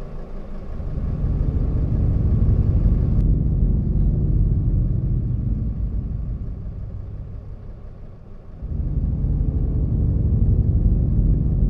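Camper van rolling slowly with its engine running: a low, steady rumble that fades for a moment about eight seconds in, then picks back up.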